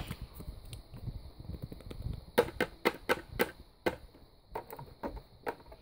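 Irregular sharp clicks and taps of a small plastic toy figure being handled against a plastic toy house, coming thicker from about halfway in.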